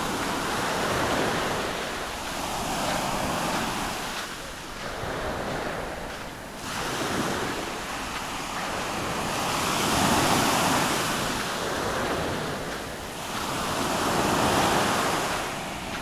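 Small Mediterranean waves breaking and washing up a sandy beach, the surf swelling and fading every two or three seconds.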